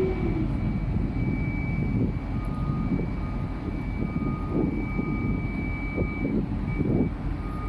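Steady drone of heavy machinery engines running, with a thin high whine that breaks on and off above the rumble.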